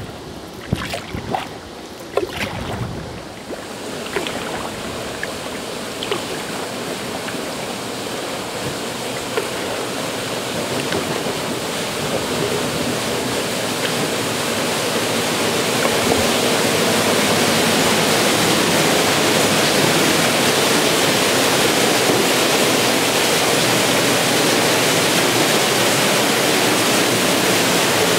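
Waterfall pouring into the sea inside a rock cave: an even rushing splash that grows steadily louder through the first half as the kayak closes in, then holds steady. A few short knocks sound in the first three seconds.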